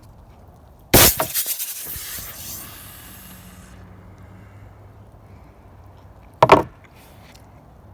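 A loud sudden crash with a bright, rattling tail that dies away over about two seconds, then a single sharp knock about five seconds later.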